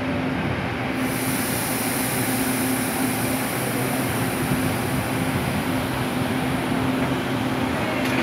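Taiwan Railways EMU800 electric multiple unit pulling out of the station and rolling past, with a steady hum over wheel-on-rail rumble. A high hiss joins about a second in.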